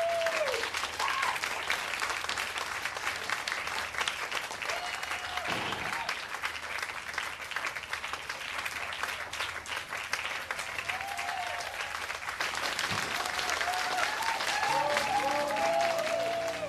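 A club audience clapping steadily, with short whooping cheers near the start and again toward the end.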